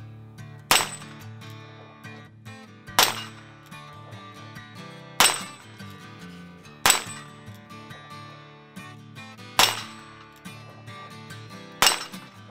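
Six shots from a .44 Special single-action revolver, about two seconds apart, each answered by the ring of steel plate targets being hit, over background music.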